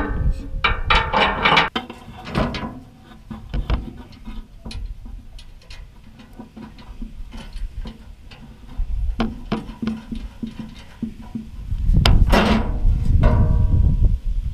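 Clicking and clattering of hand tools and metal rack parts during assembly, with scattered sharp clicks and a louder burst of handling clatter and rumble near the end.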